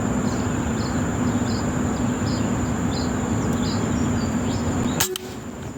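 Outdoor ambience of insects: short chirps repeating about twice a second over a steady high-pitched whine, with a steady low hum beneath. A single sharp click comes about five seconds in, after which the background is quieter.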